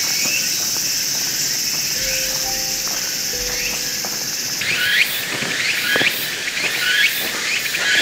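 Woodland ambience: insects keep up a steady high drone, under faint sustained background music notes. A little past halfway the drone gives way to repeated short rising chirps and soft footsteps on leaf litter about once a second.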